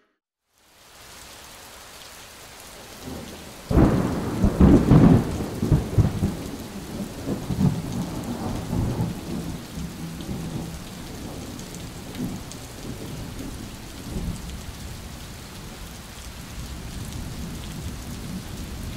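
Steady rain with a sudden loud clap of thunder about four seconds in, its rumble dying away slowly over the following ten seconds.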